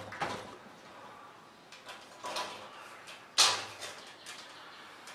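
Handling noise from the tape measure and the wooden frame: several short scrapes and knocks, the loudest about three and a half seconds in.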